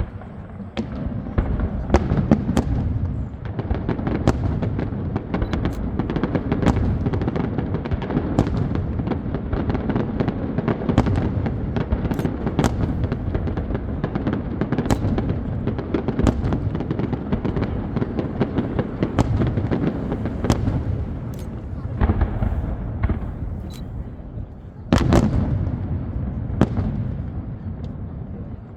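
Fireworks display: a dense, continuous barrage of booming shell bursts and sharp crackling reports, several a second, over a rolling low rumble, with an especially loud burst near the end before it thins out.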